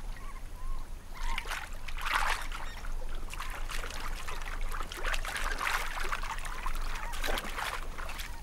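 Crab plovers bathing in shallow seawater, splashing as they dip and thrash in the water, in several bursts of a second or more.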